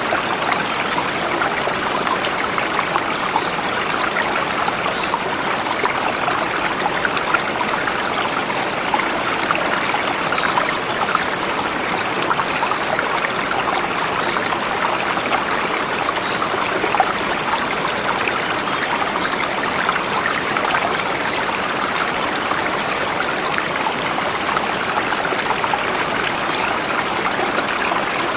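Forest river flowing over smooth rocks: a steady, even rush of water with small splashing crackles throughout.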